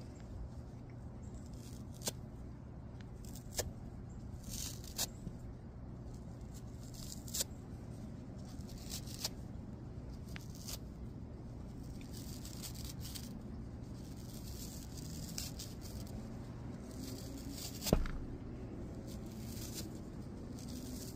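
Fluffy fur being pulled and torn off a small plush toy by hand: soft rustling with scattered light clicks and crackles, and one sharper tap near the end.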